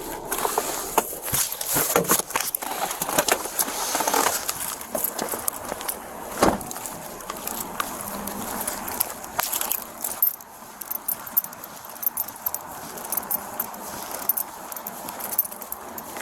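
Keys and gear jangling with scattered clicks and knocks, busiest in the first few seconds, and one louder thump about six and a half seconds in.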